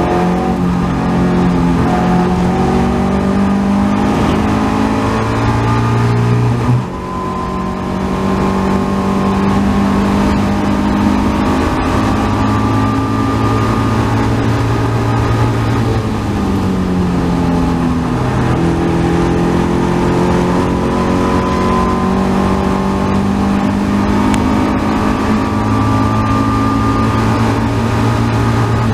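Caterham 270R race car's 1.6-litre Ford Sigma four-cylinder engine pulling hard under full throttle, heard from the cockpit, its pitch climbing steadily. About seven seconds in the revs drop sharply at an upshift, and later they dip briefly and climb again toward high revs.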